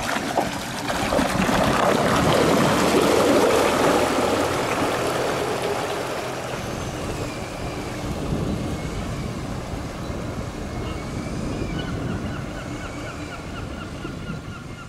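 Water rushing and splashing along the hull and in the wake of a wooden launch moving under near-silent electric power, loudest in the first few seconds and then easing. Faint bird calls come in over the water in the second half.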